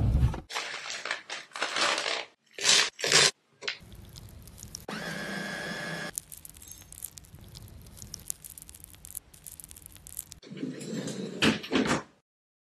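A freezer drawer pushed shut with a low thud, then a countertop blender running steadily for several seconds, puréeing frozen berries, loudest for about a second and then quieter. Near the end, more short knocks and slides as the freezer drawer is handled again.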